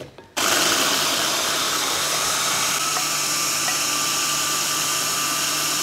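Electric hand blender switching on abruptly about half a second in and running steadily, blending soya tofu.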